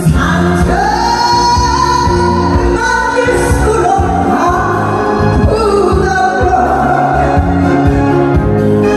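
A woman singing live into a handheld microphone over amplified backing music, holding long notes.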